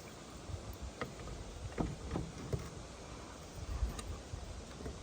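Scattered light clicks and knocks over a steady low rumble.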